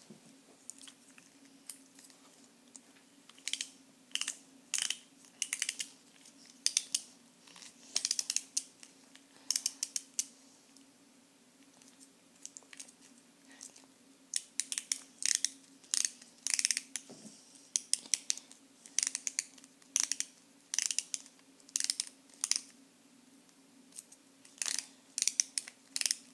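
Irregular clusters of short, sharp clicks and snips from small objects being handled, with quiet gaps between them, over a faint steady low hum.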